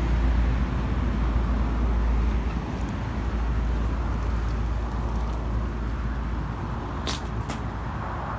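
Steady low rumble of outdoor street noise, easing a little near the end, with two short sharp clicks about seven seconds in.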